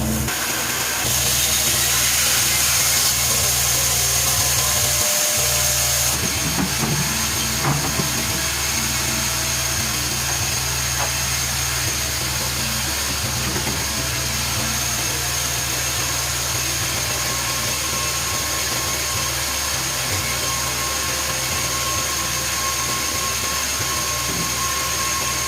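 A woodworking power tool running steadily with a constant hum and a high whine, a little louder for the first few seconds.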